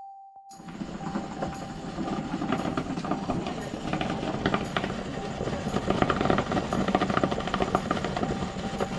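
Natural hot-spring steam rushing out of a steam-cooking box around a lidded clay pot, with rapid crackling and sputtering. It starts abruptly about half a second in and stays loud and steady.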